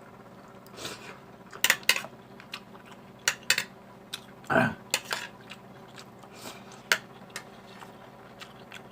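Spoon and fork clinking and scraping against a plate during a meal, in scattered light clicks.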